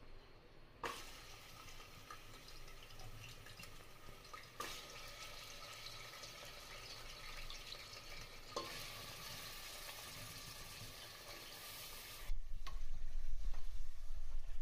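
Food frying and sizzling in a pan while being stirred, in several short spliced stretches that each begin with a click. About twelve seconds in it gives way suddenly to a louder low rumble.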